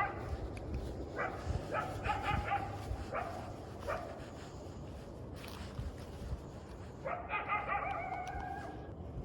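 Coyote calling: a run of short barks and yips over the first few seconds, then a longer bark-howl about seven seconds in.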